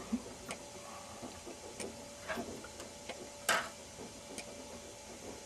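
A few faint, scattered clicks and taps, the loudest about three and a half seconds in, over a faint steady tone: LED tester probes being touched to the test points of a fire-damaged TV backlight strip.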